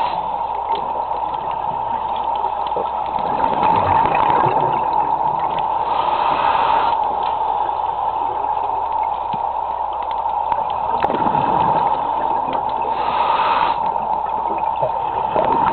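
Underwater ambience heard through a camera housing: a steady water hiss with a constant hum. Two louder bursts of rushing noise come about seven seconds apart, around the middle and near the end.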